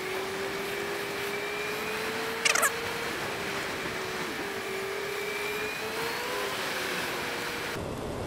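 Suzuki Bandit motorcycle's inline-four engine running at steady low revs over a constant hiss of wind and wet road. About two and a half seconds in comes one brief, high-pitched squeal.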